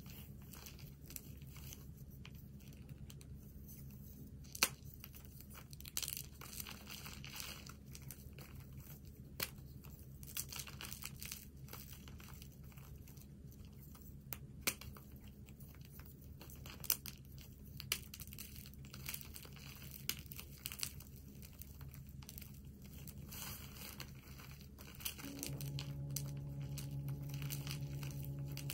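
A hand squeezing and crushing blocks of gym chalk and cornstarch in a plastic bag liner: soft crumbling and plastic crinkling, with scattered sharp snaps as chunks break. A steady low hum joins near the end.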